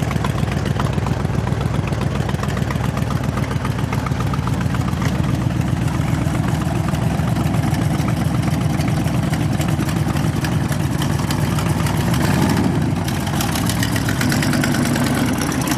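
Small-block V8 of a 1974 Corvette Stingray, a built LT1 breathing through open side pipes, idling steadily with a dense, even exhaust pulse.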